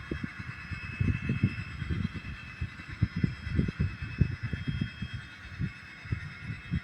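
Train running, with an uneven low rumbling and knocking and a faint steady high whine.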